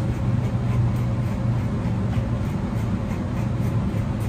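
A steady low machine hum runs throughout, with faint soft strokes of a slicker brush through a dog's coat.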